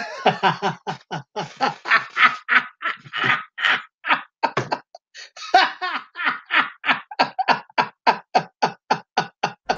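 A man laughing out loud on purpose, a put-on laugh "for no reason": long runs of quick ha-ha bursts, about four a second, with a short break for breath about halfway through.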